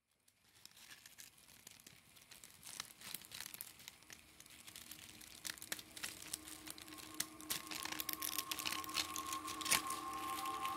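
Irregular crackling of many sharp clicks, fading in from silence and growing louder. About seven seconds in, a held musical tone enters beneath it.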